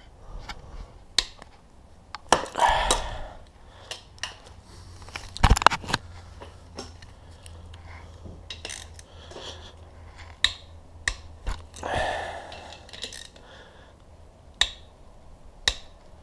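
Hand tools and metal engine parts clinking and knocking during a dirt-bike engine teardown: scattered sharp clicks, with a few longer clattering rattles.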